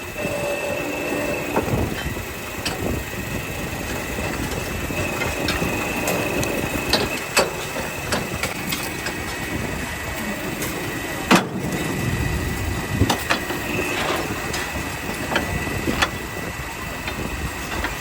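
Factory machinery running, with a steady high whine over a dense mechanical din and scattered sharp metallic knocks, the loudest about eleven seconds in.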